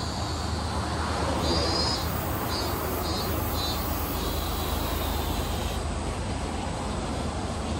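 City street ambience: a steady wash of traffic noise with a low hum, and a high, thin pulsed chirping that comes and goes over it, the longest stretch in the middle.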